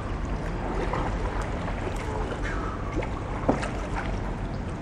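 Kayak paddle blades dipping and splashing in river water as a sea kayak is paddled along, with water lapping around the hull. One sharper, louder hit stands out about three and a half seconds in.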